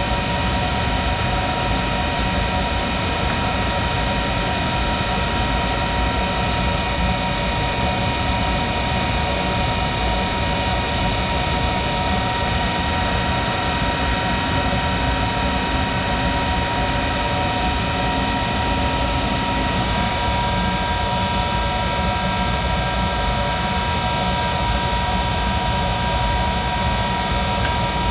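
Monarch 10EE lathe running steadily, a machine whine of several fixed tones over a low rumble. About two-thirds of the way through, the mix of tones shifts slightly.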